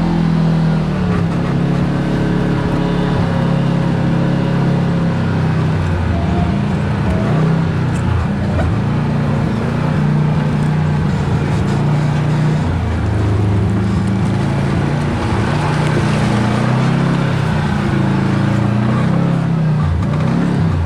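Kawasaki Teryx KRX side-by-side's parallel-twin engine running while driving, its note rising and falling with the throttle, over steady tyre and wind noise.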